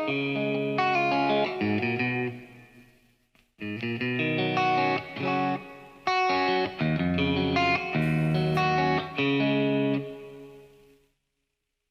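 Electric guitar playing chords and single notes, with a short pause about three and a half seconds in, then dying away near the end.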